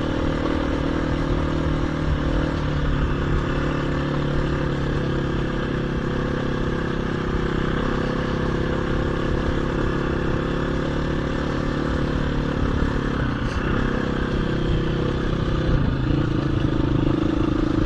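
KTM 350 EXC-F dirt bike's single-cylinder four-stroke engine running steadily under load as it climbs a grassy lane uphill. Its note shifts a little about two-thirds of the way through and grows slightly louder near the end.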